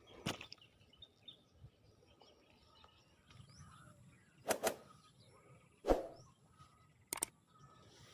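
A handful of sharp knocks and clicks, a double one about four and a half seconds in and another about a second later being the loudest, over a quiet outdoor background with faint bird chirps.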